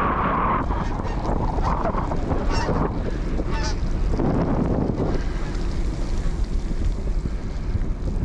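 Wind buffeting a bicycle-mounted camera's microphone while riding, a steady low rumble with tyre noise on wet pavement. A few short higher-pitched sounds come through between about two and four seconds in.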